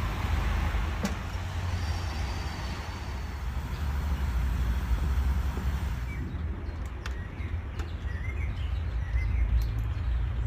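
Steady low background rumble, with several short bird chirps and a few faint clicks in the second half.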